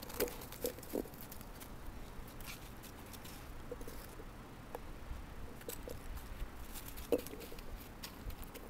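Quiet patter of footsteps in snow, with a few short soft sounds in the first second and one more about seven seconds in.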